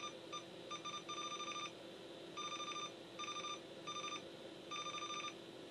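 Bench multimeter in continuity mode beeping in about seven short, stuttering bursts of a high-pitched tone as the probe touches the capacitors. The beep signals continuity to ground: the last two capacitors on the line are shorted.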